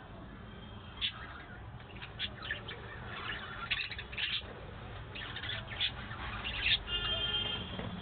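A flock of budgerigars chirping in quick, high-pitched bursts, several birds overlapping, with one longer held call near the end.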